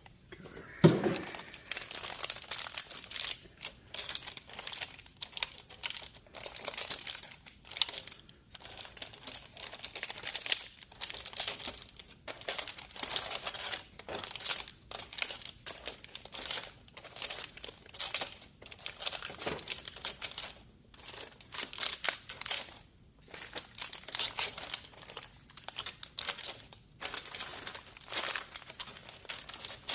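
Snack chip bags crinkling and rustling in irregular handfuls as they are handled and stocked into a vending machine, with a sharp knock about a second in.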